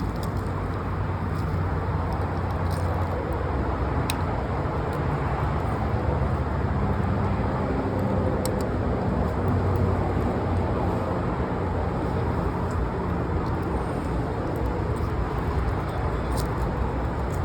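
Steady low rumble of an idling car engine, with a few faint sharp ticks.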